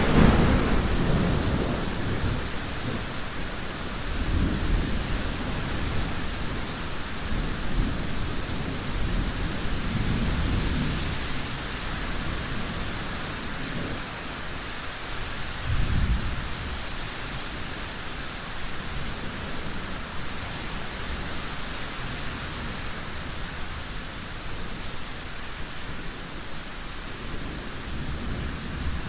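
Thunderstorm: steady rain with thunder. A loud thunderclap at the start rolls away, followed by several low rumbles, the strongest about 16 seconds in.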